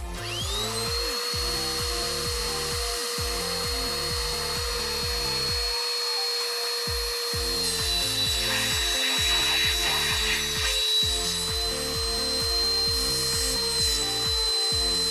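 Handheld electric air blower spinning up and running with a steady high whine, its nozzle blowing air into a motorcycle engine's oil drain opening to push out the last of the old engine oil during an oil change. The pitch dips slightly about eight seconds in, with a spell of added hiss.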